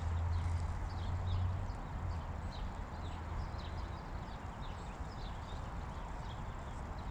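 Spinning reel being cranked to retrieve a spinner lure, giving light, scattered high ticks. Under it, wind rumbles on the microphone, strongest in the first two seconds.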